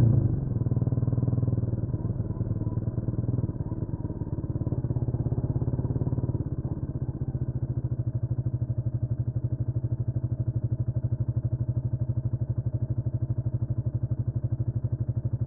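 Honda CMX250 Rebel motorcycle engine coming off the throttle as the bike slows, then settling from about seven seconds in into a steady idle with an even pulsing beat.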